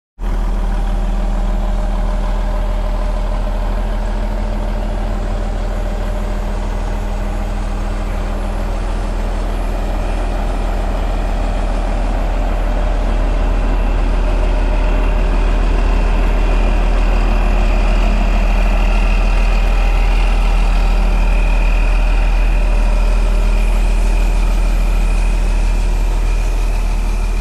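Large diesel engine idling steadily, with a steady high whine over it. The sound gets a little louder about halfway.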